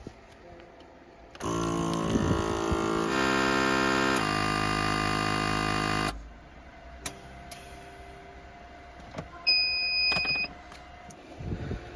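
Alpax P455 vacuum sealer's pump motor starting about a second and a half in and running steadily for about four and a half seconds, its tone shifting twice as it draws air out of a food bag, then cutting off suddenly. A few seconds later comes a single electronic beep about a second long.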